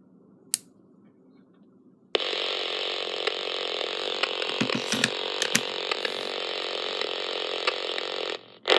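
A single button click, then about two seconds in the Raynic CR-1009 radio's speaker comes on with steady AM-band static peppered with clicks. The static cuts off suddenly near the end. The clicking is interference that shows up on AM when the radio runs on its lithium-ion battery.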